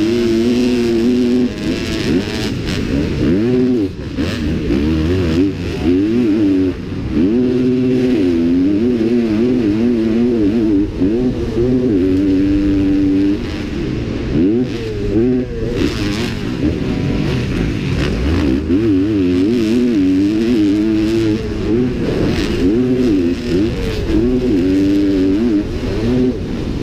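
Motocross bike engine heard at close range from the rider's helmet camera under racing throttle, its pitch climbing and dropping again and again as the rider revs out and backs off.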